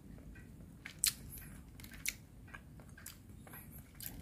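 Close-up chewing of a crisp okonomiyaki, with a few sharp crunches, the loudest about one and two seconds in.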